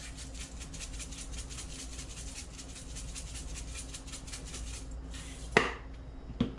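Spice shaker shaken quickly over a bowl of meat, a fast even rattle of grains that stops after about five seconds. A sharp knock follows, louder, as a bottle is set down on the wooden counter, then a lighter knock just before the end.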